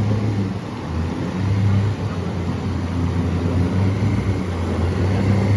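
An engine running steadily with a low hum and some noise over it.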